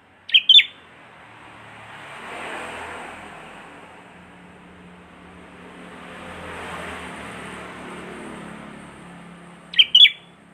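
Sooty-headed bulbul (kutilang) giving a short burst of sharp, prenjak-like chirps just after the start and again near the end. Between them a rushing noise swells and fades twice.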